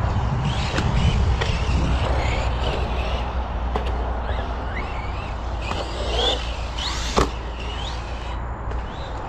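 Electric 1/10-scale Arrma RC monster truck being driven, its motor giving short rising whines over a steady low rumble, with one sharp knock about seven seconds in.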